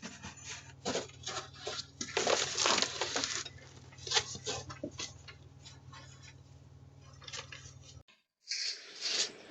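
Clattering and clinking of objects being handled, in uneven bursts that are heaviest about two to three seconds in, over a steady low hum. Hum and clatter break off together about eight seconds in.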